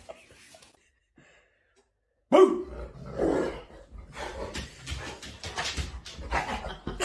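A dog barking in irregular bursts, starting suddenly about two seconds in after a near-silent pause.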